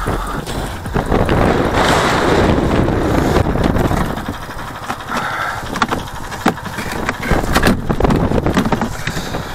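Strong wind buffeting the microphone, a loud steady rush, with a few sharp knocks and scrapes of plastic ice-fishing sleds being handled, mostly in the second half.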